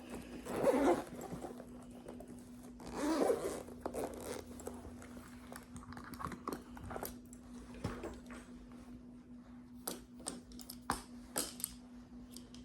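Props being handled while a stethoscope is fetched: two short rasping swishes within the first four seconds, then a run of light clicks and taps.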